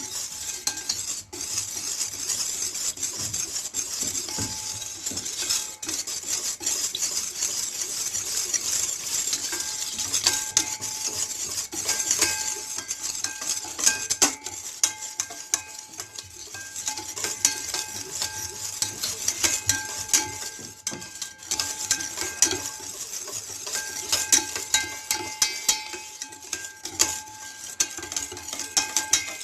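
Hand-stirring cream and lemon juice in a bowl: a utensil scraping round the bowl continuously, with frequent clinks against its side that ring briefly.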